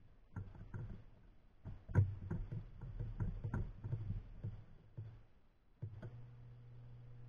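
Irregular clicks and knocks of hands handling a plastic thermocouple plug and pressing buttons on a digital temperature controller, the loudest about two seconds in. About six seconds in, a steady low electrical hum starts.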